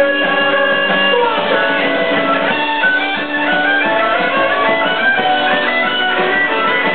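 Live music with a violin playing lead over band accompaniment.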